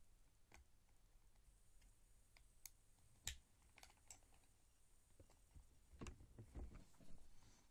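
Faint clicks and knocks of plastic parts being handled and fitted together: the housing of a Philips steam-generator ironing system during reassembly. A few sharp single clicks come first, the sharpest about three seconds in, then a cluster of louder knocks and rubbing between about six and seven seconds.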